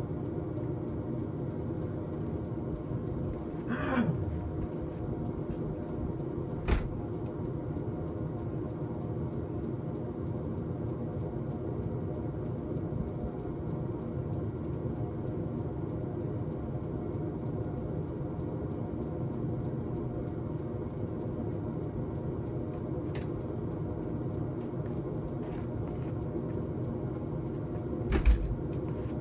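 Diesel air heater running steadily on its third power setting, a constant fan-and-combustion hum with a faint rapid ticking. A short falling whistle comes about four seconds in, and there is a single knock a few seconds later and another near the end.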